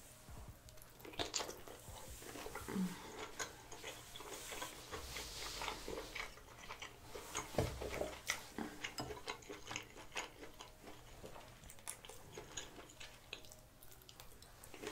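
Close-miked chewing and wet mouth sounds of someone eating sauced seafood, with many small lip smacks and clicks.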